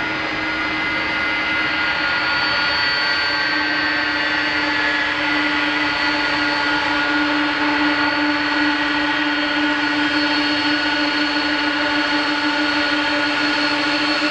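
Jet engines of a Boeing 747-400F freighter at taxi power as it rolls by: a steady whine of several held tones over a rushing roar.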